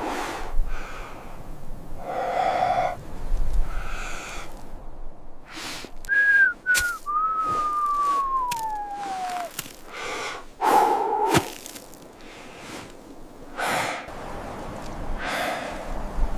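Heavy breathing: a run of loud, separate breaths and snorts. About six seconds in come two short whistle notes, then a long whistle sliding down in pitch for about three seconds.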